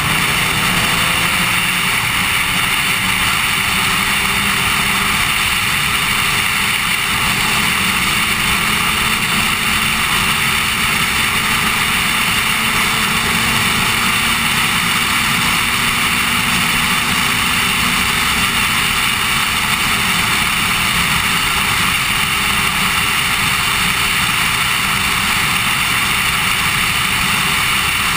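Steady wind rush over a helmet-mounted camera on a Yamaha sportbike at road speed, with the bike's engine faint beneath it, its pitch drifting slowly up and down with the throttle.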